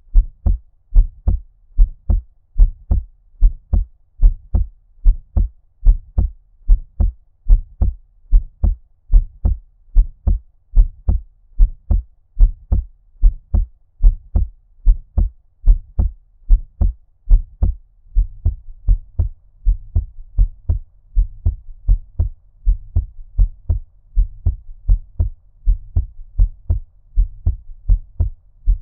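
Human heartbeat at a normal resting rate, a steady even run of low, muffled thumps, just under two a second, as if heard underwater. From about two-thirds of the way in, a low steady rumble fills the gaps between the beats.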